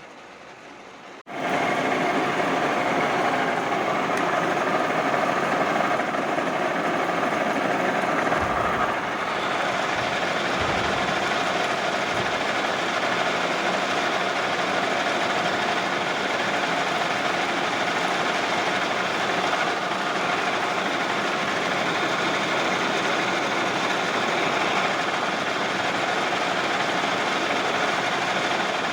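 Metal lathe running, a steady loud mechanical drone with a held tone in it, coming in abruptly about a second in.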